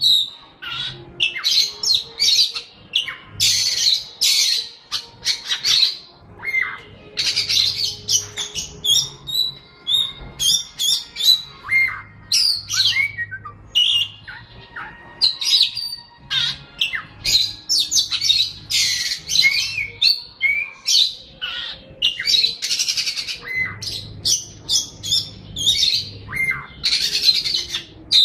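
A songbird singing continuously: a fast, varied run of short harsh notes mixed with chirps and quick pitch sweeps, with only brief pauses.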